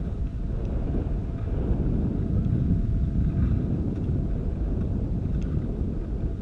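Wind buffeting the microphone of a camera carried by a downhill skier, a steady low rumble mixed with the skis sliding over snow.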